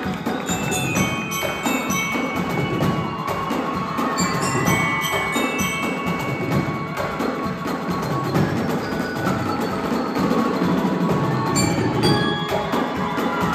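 Marching band playing, glockenspiels (bell lyres) ringing out the melody over the beat of marching drums.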